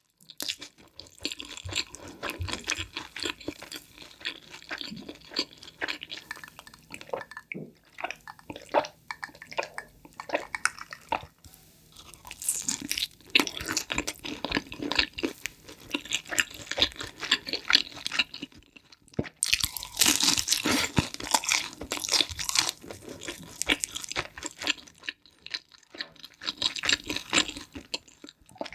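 Close-miked chewing and crunching of pizza with its crust, a rapid, irregular run of crisp crunches with short pauses between bites.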